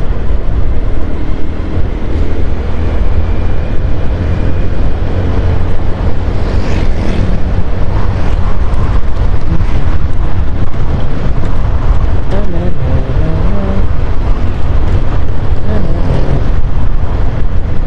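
Steady low rumble of wind and road noise on a helmet-mounted microphone with a furry windscreen, over a Honda scooter's engine running at cruising speed.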